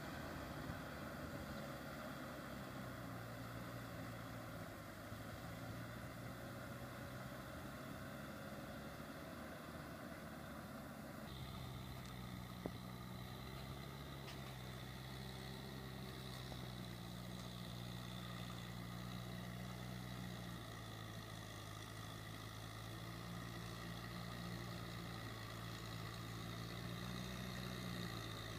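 Kubota M6040SU tractor's diesel engine running steadily under load in a muddy paddy, its pitch shifting slightly up and down as the load changes. A single sharp click is heard about halfway through.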